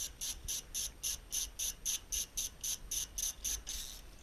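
Steady, even train of short high-pitched chirps, about four a second, like a cricket chirping; it stops near the end.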